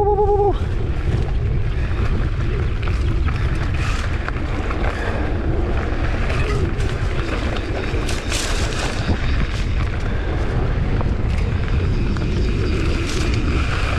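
Heavy wind rumble on a GoPro microphone during a ride, with scattered clatters and knocks throughout.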